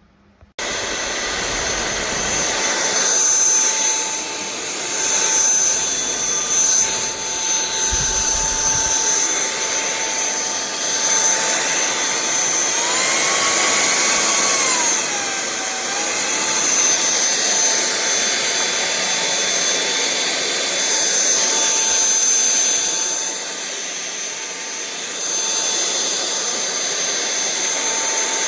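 Sulean X8 cordless stick vacuum switched on about half a second in and running with a steady whine. Around halfway its pitch rises for a couple of seconds, then drops back.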